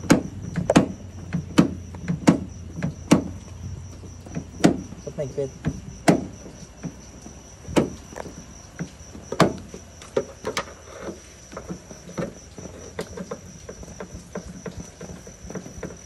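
Ford Ranger exterior door handle and latch being worked by hand, giving a run of irregular clicks and clacks, loudest in the first few seconds, as the latch is tried out during the repair of its snapped handle cable.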